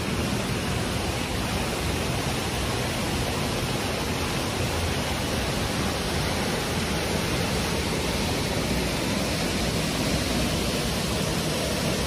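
Steady rush of water: a shallow hill stream running over stones, with a waterfall plunging into a pool in a rock gorge.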